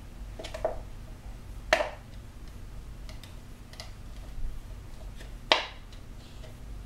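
Scissor point being twisted into the thin plastic wall of a PET soda bottle to bore a small hole: irregular sharp plastic clicks and crackles, two louder ones about two seconds and five and a half seconds in.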